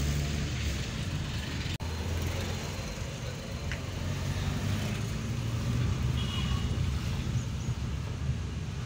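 Steady car engine and road noise heard from inside the cabin while driving slowly in traffic. It drops out for an instant about two seconds in.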